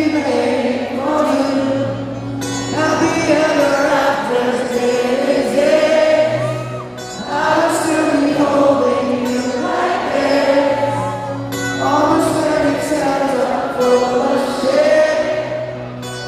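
Live band performing a song with male lead vocals over acoustic guitar and band, recorded from the audience in an arena.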